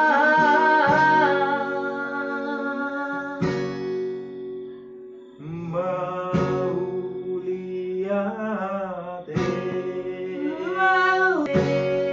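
Singing in long held, wavering notes over a strummed acoustic guitar, with a short lull in the middle.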